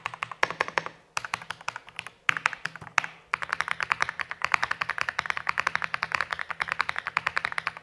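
Typing on a Dareu A87PRO LCD mechanical keyboard with Snow switches and foam sound-dampening: a few scattered keystrokes, then fast, even typing from about three seconds in. The bottom-out is crisp and bright.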